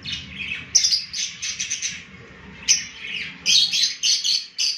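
Lovebirds chirping: a run of short, high chirps that starts just under a second in and grows busier near the end.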